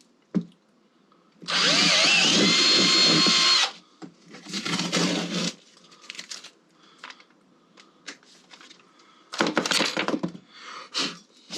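A power drill runs in three bursts while driving mounting hardware. The first burst lasts about two seconds, with a whine that rises as the motor spins up and then holds steady. Two shorter runs follow, with small clicks and knocks between them.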